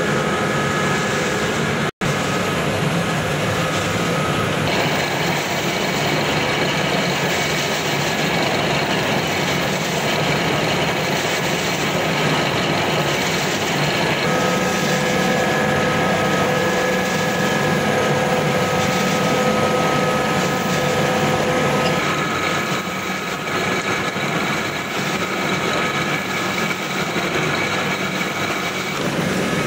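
XGJ560 ring-die sawdust pellet mills running under load: a loud, steady mechanical din with several steady whining tones. The mix of whines changes a few times, and the sound cuts out for an instant about two seconds in.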